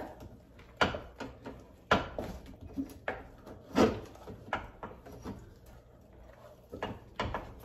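A ladle beating stiff dhido dough in a metal saucepan: uneven knocks of the ladle against the pan and thick, sticky slaps of the dough, roughly one a second, as the porridge is worked hard.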